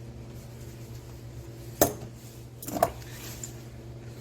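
Two sharp metallic clinks about a second apart, the second a quick double strike: snap-ring pliers and a ball-joint circlip knocking against the steel steering knuckle while the clip is being worked into its groove. A steady low hum runs underneath.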